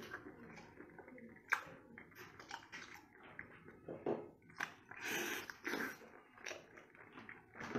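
Close-up wet chewing and biting of whole octopus in the mouth: irregular sharp clicks and smacks, the strongest about a second and a half in, with a few longer noisy bursts of sucking and mouth noise around the middle.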